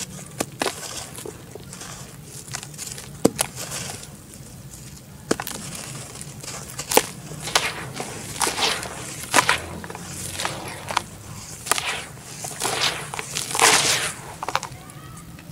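Hands crushing dry red dirt chunks into water in a plastic basin and squeezing the gritty mud: irregular crunches and sharp snaps with wet sloshing, loudest about two seconds before the end.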